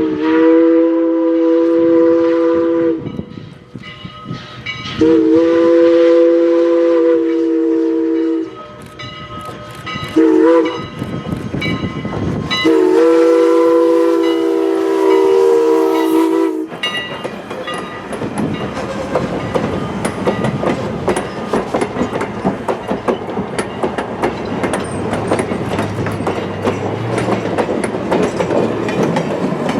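Steam locomotive whistle sounding a chord in the grade-crossing pattern: long, long, short, long, the signal for a road crossing ahead. Then, from about 17 seconds in, the train rolls past with a steady rush of wheels on rail and fast clickety-clack.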